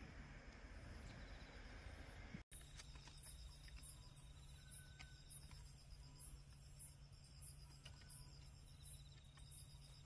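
Night insects chirping in the grass: faint, very high-pitched pulses repeating about twice a second, broken by a brief dropout about two and a half seconds in.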